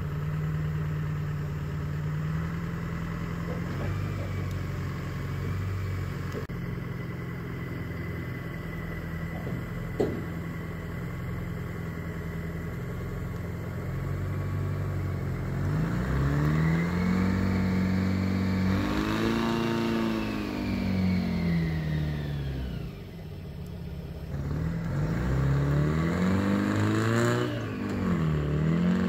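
Four-cylinder Detroit diesel engine of an old 2.5-ton truck idling steadily, then revving up and down twice in the second half. A single sharp knock comes about ten seconds in.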